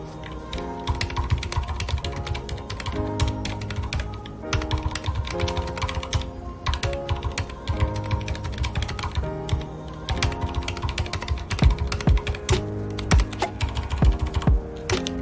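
Rapid, irregular typing on a mechanical keyboard with red (linear) switches, key after key, over soft background music with held notes. The keystrokes get heavier and more separate in the last few seconds.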